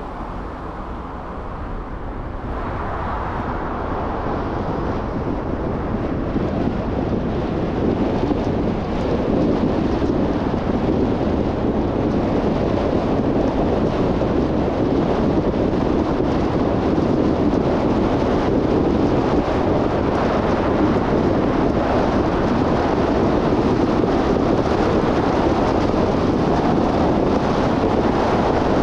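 Steady road and wind noise of a car driving, growing louder over the first several seconds and then holding level.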